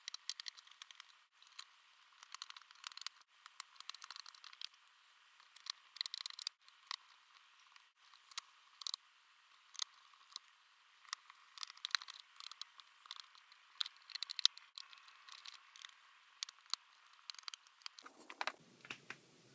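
Phillips screwdriver driving the bottom-case screws back into a MacBook: irregular light clicks and scratching of the bit turning in the screw heads, with small knocks of the tool against the case.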